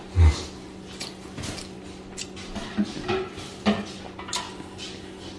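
Mealtime handling sounds: a dull thump just after the start, then scattered light clicks and taps of a plate on a granite table as food is picked up by hand and eaten.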